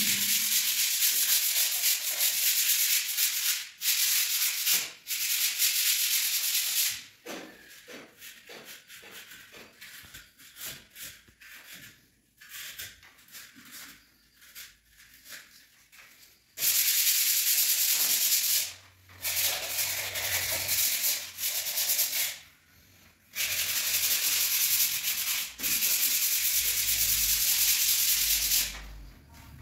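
Sandpaper rubbed by hand over dried wall putty on a ceiling, smoothing it in quick back-and-forth strokes. The sanding runs in long continuous spells, with a quieter stretch of separate short strokes partway through.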